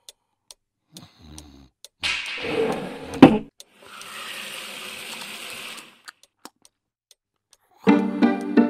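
Alarm clock ticking about twice a second. About two seconds in there is a loud voice-like outburst ending in a sharp peak, followed by a steady hiss lasting about two seconds. Plucked-string music starts near the end.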